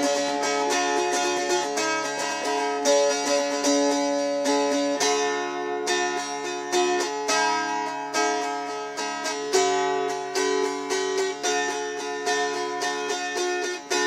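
Yocky mountain dulcimer strummed in quick, even strokes: a fretted melody played over steadily ringing drone strings.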